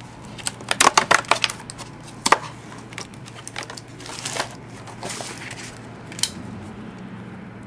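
Cardboard trading-card box being opened and handled by hand. A quick run of sharp crackling snaps comes about a second in, with another snap shortly after, then softer rustling and scraping.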